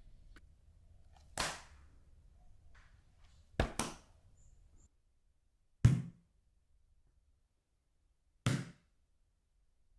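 A run of short, separate knocks and thumps on household objects: one about a second and a half in, a quick double knock near four seconds, the loudest and deepest thud about six seconds in, and a last knock about eight and a half seconds in.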